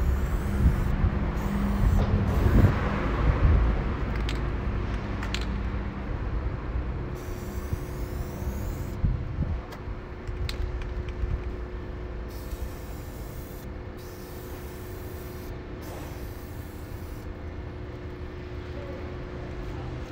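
Street traffic: a heavy vehicle's low engine rumble, loudest in the first few seconds, with a short hiss about two seconds in, then dying down to a steady background hum.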